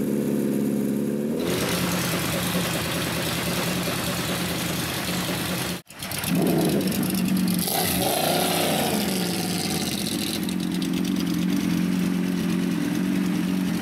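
Sport bike inline-four engines being revved. First a Repsol Honda CBR's engine climbs into a louder, rougher note about a second and a half in. After a sudden break near the middle come a few quick rising-and-falling throttle blips, then a steady fast idle.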